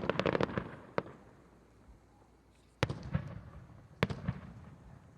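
Aerial fireworks bursting: a rapid run of sharp cracks and bangs in the first second, then two single loud bangs about three and four seconds in, each trailing off over a second or so.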